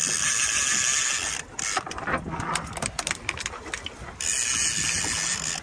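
Fishing reel's drag buzzing as a hooked shark strips line off in two runs: one for about the first second and a half and another near the end, with ratchety clicking between them.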